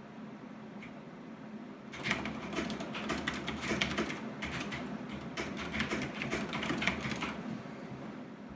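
Fast typing on a Corsair K70 Rapidfire mechanical keyboard with Cherry MX Speed switches: a quick flurry of key clicks that starts about two seconds in and stops about a second before the end.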